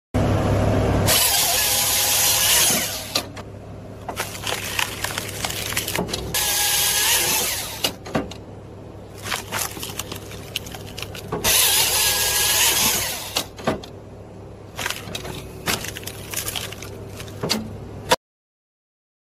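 Firewood processor attachment on a New Holland compact track loader. The loader's engine runs steadily while the attachment's chainsaw bar cuts through a log three times, about every five seconds; each cut is a loud rasping burst whose pitch dips under load. Knocks and cracks of wood come between the cuts.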